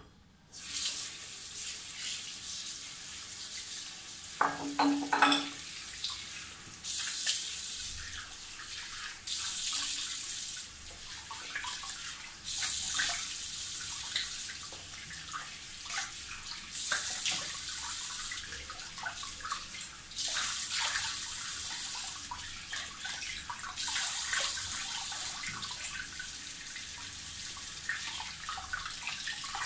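Bathroom tap turned on about half a second in and left running into a sink, with louder splashing every few seconds as water is scooped up to rinse shaving lather off the face; the tap is shut off at the end. A short squeaky tone sounds about five seconds in.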